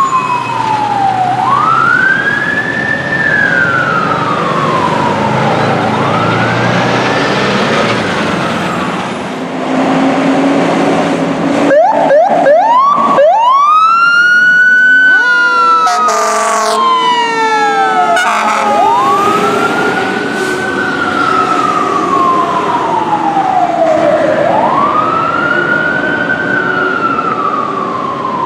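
Fire truck siren wailing, each cycle rising quickly and falling slowly, repeated over and over. Midway it switches briefly to fast yelping sweeps, then a short horn blast follows a few seconds later, before the slow wail resumes.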